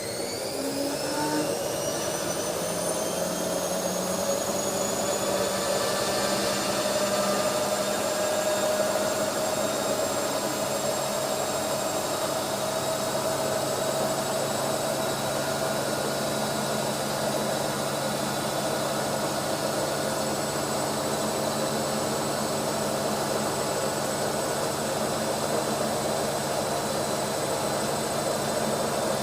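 Automatic washing machine on its spin cycle: the drum motor's whine climbs in pitch as the drum speeds up over the first few seconds, then holds steady at full spin speed.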